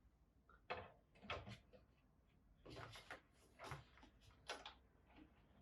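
A handful of soft clicks and knocks, scattered over a few seconds, as a graphics card is handled and fitted into a small metal PC case.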